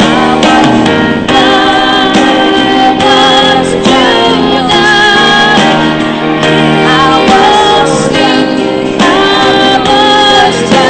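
A woman singing with instrumental accompaniment, her held notes wavering with vibrato.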